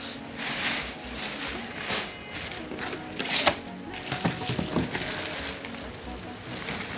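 Plastic grocery bags rustling in short bursts as produce is handled and unpacked, over background music.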